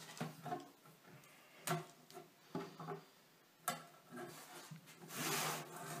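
A clear acrylic sheet and a metal ruler being handled on a wooden tabletop: a few sharp knocks, then a longer sliding scrape about five seconds in.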